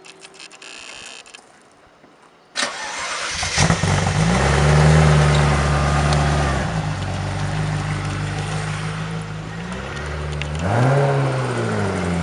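Ferrari F40's twin-turbocharged V8 starting up. It fires suddenly about two and a half seconds in and settles into a raised, steady idle, then drops to a lower idle. Near the end it is revved once, the pitch rising and falling.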